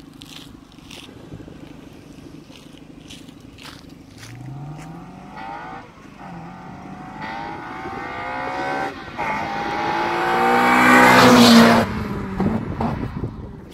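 Honda Civic Type R with a Cobra 2.5-inch aftermarket exhaust accelerating hard through the gears as it approaches. The engine note climbs in pitch, dips at gear changes about six and nine seconds in, and grows steadily louder. It is loudest just before it passes, drops sharply at the pass about twelve seconds in, then fades.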